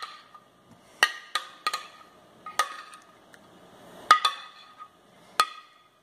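A spoon knocking and scraping against a glass mixing bowl while thick bread-pudding batter is scraped out into a tube pan. About seven sharp knocks at irregular intervals, each leaving the glass ringing briefly.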